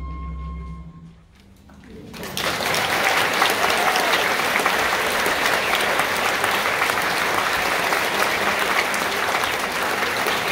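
The final held chord of an orchestra with solo oboe dies away in the first second. After a brief hush, an audience starts clapping about two seconds in, and the loud, steady applause carries on.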